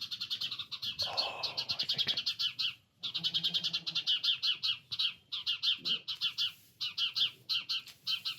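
Small birds chirping in a rapid, continuous chatter of about ten high chirps a second, pausing briefly now and then. A short rustle sounds about a second in.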